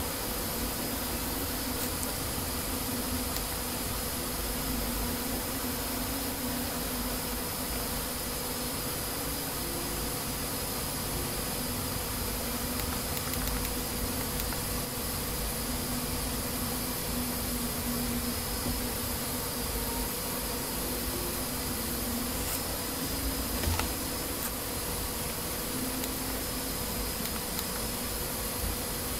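Steady background hiss with a low buzzing hum that wavers on and off, and one faint click near the end.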